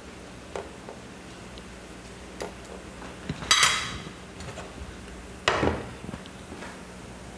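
Metal tongs knocking against a frying pan, then clattering down onto a ceramic plate about three and a half seconds in, with another knock about two seconds later. Beneath them, a faint steady sizzle of beef cubes browning in their own rendered fat.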